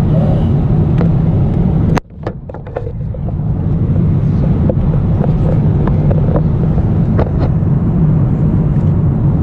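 Steady low drone of a jet airliner's cabin noise, with scattered clicks and knocks from hands handling the camera and pillow fabric. About two seconds in, the sound drops out abruptly and swells back over the next two seconds.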